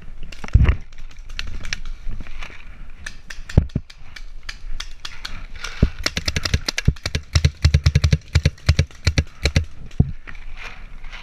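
Paintball fire: sharp pops from paintball markers shooting, with balls smacking into the wooden bunker. A few single shots come at first, then a rapid volley of many shots about halfway through.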